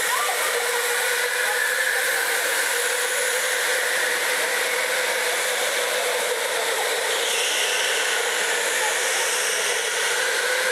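Electric indoor racing karts running laps around the track, a steady whine from their motors with a hiss over it.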